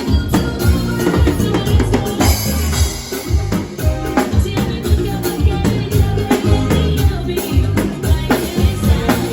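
Band playing during a sound check: drum kit and bass guitar driving a steady, repeating beat, with other instruments over it.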